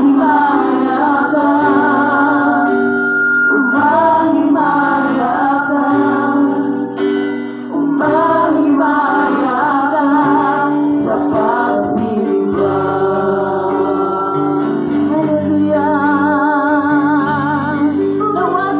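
Christian worship song: sung melody with wavering held notes over steady instrumental accompaniment, with a brief dip in the music a little past seven seconds in.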